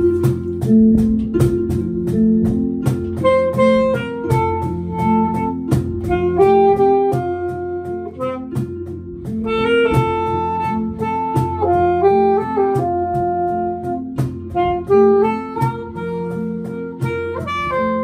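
Instrumental background music in a jazzy style: a held-note lead melody on a wind instrument such as a saxophone, over guitar chords and bass with a steady beat.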